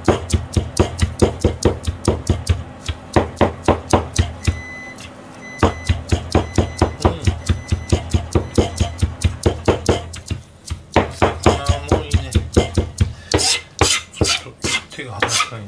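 Chinese cleaver chopping greens on a plastic cutting board: quick, steady chops at about four a second, pausing for about a second twice, a third and two-thirds of the way through.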